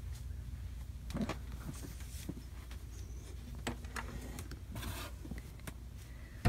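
Faint rustling, scuffs and small knocks of a person moving through a cramped space, with scattered clicks over a steady low hum.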